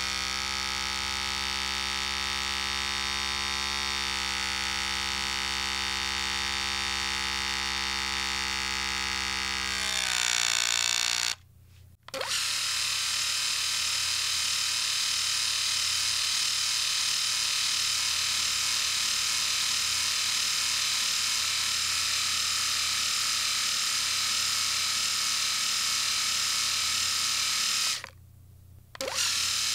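Electric shaver motor buzzing steadily; its pitch rises just before it cuts off about eleven seconds in. After a second of quiet, a second electric shaver with a higher, hissier buzz runs steadily. It stops briefly near the end and starts again.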